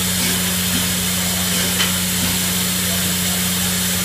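LNER Gresley A4 Pacific steam locomotive 60019 Bittern standing with steam hissing steadily, over a steady low hum.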